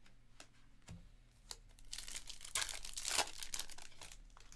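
Foil wrapper of a Topps Stadium Club baseball card pack being torn open and crinkled: a few light clicks at first, then a dense crackling about halfway through that fades near the end.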